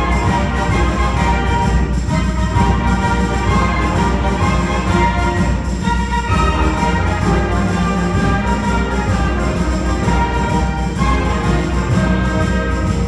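School concert band playing a loud full-ensemble passage, with brass and sustained low bass notes under the melody.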